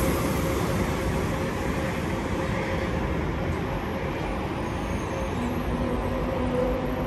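A pair of SNCF electric freight locomotives, one a BB 27000 Prima, running light past and away along the track. Their rumble dies down in the first second and then holds steady, with a steady whine throughout and a second, lower whine near the end.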